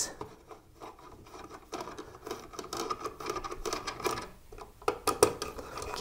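Screwdriver backing out a receptacle's mounting screw from its metal box: a faint rasping rub from about two seconds in, then a few sharp clicks near the end as the screw and device come loose.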